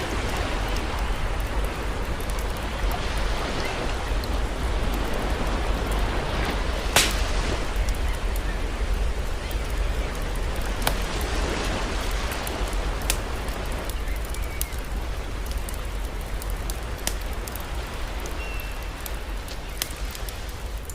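Campfire crackling, with scattered sharp pops and one louder snap about a third of the way in, over a steady wash of sea surf.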